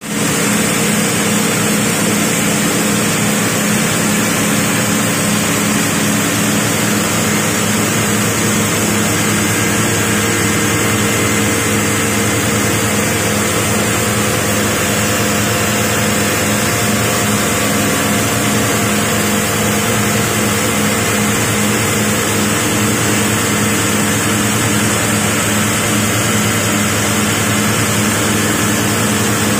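Nylon POY/FDY pilot spinning machine running: a loud, steady machine drone with a low hum and a high hiss.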